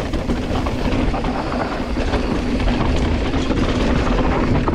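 Electric mountain bike rolling fast over loose rock: a continuous clattering rumble of tyres on stones and rattling bike parts, starting suddenly and holding steady.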